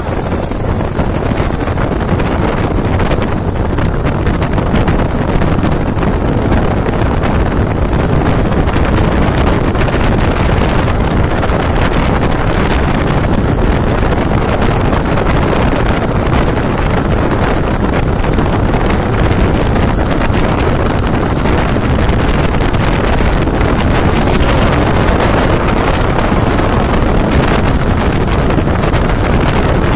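Steady wind rush buffeting the microphone of a motorcycle riding at highway speed, with the bike's engine and road noise running underneath.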